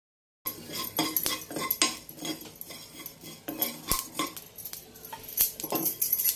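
A spoon stirring and scraping cumin seeds around a nonstick pan as they dry-roast, giving irregular clinks and scrapes against the pan.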